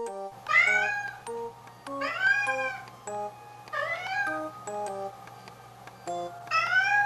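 Domestic cat meowing four times, long drawn-out calls that rise and then fall in pitch, about every one and a half to two seconds. The cat is calling for its housemate cat, which is shut away in another room for the night.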